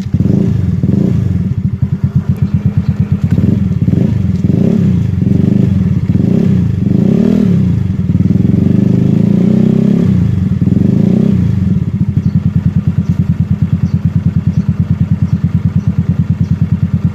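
Yamaha Mio Soulty scooter's stock single-cylinder four-stroke engine running through a Kalkal Evo organ-pipe aftermarket exhaust, idling with even exhaust pulses. It is blipped up and back down several times through the first two-thirds, then settles back to a steady idle.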